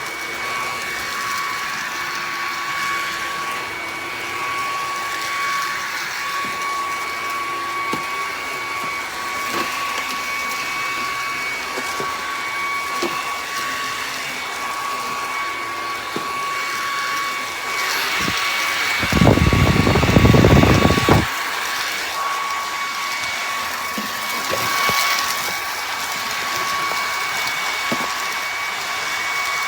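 BISSELL PowerClean cordless stick vacuum running steadily with a constant high whine. About two-thirds of the way through it gives a loud low rumble lasting about two seconds.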